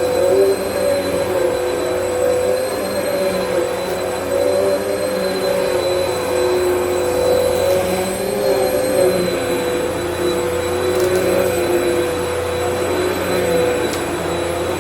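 Vacmaster UC0101 bagless upright vacuum running: a steady motor whine made of several held tones whose pitch wavers slightly.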